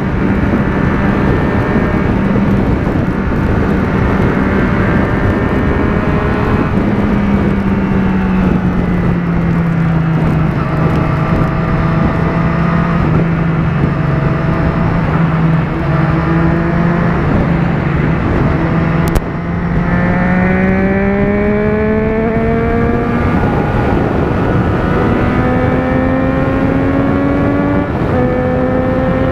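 Motorcycle engine pulling at highway speed under heavy wind rush. The engine note holds steady and sags slightly, then about two-thirds of the way through it climbs as the rider accelerates. Two upshifts follow a few seconds apart, each dropping the pitch before it rises again.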